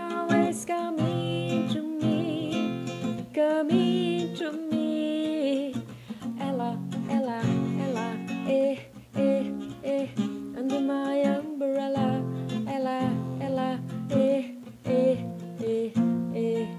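Acoustic guitar strummed and picked through a chord progression, with a wordless sung vocal gliding over it for the first several seconds.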